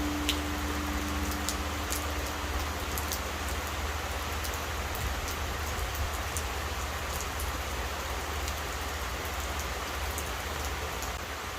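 Steady rain with scattered drip ticks and a low rumble beneath it. A Buddhist temple bell hums on in a low steady tone and fades away over the first three seconds or so.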